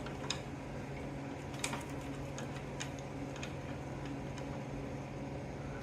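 Faint, scattered light clicks and ticks from a steel F-clamp being handled, a dozen or so at uneven spacing, over a steady low hum.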